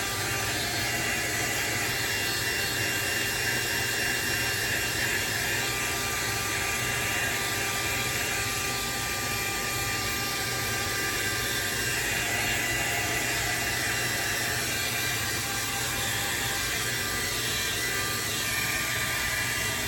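Hand-held hair dryer running steadily: an even blowing hiss with a faint motor whine, unchanging throughout.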